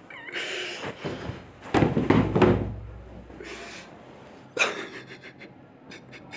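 Rustling and a dull thump as a pillow is pulled against the body and handled, with a man's heavy, distressed breathing. A few small clicks follow near the end.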